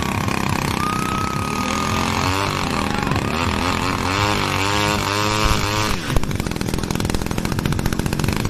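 Small model-aircraft engine on a radio-controlled plane, its pitch swinging up and down as it is revved, then running at a fast, steady buzz from about six seconds in.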